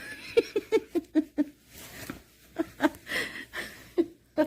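A woman laughing in quick short bursts of 'ha-ha-ha', about five a second at first, then trailing into a few scattered chuckles.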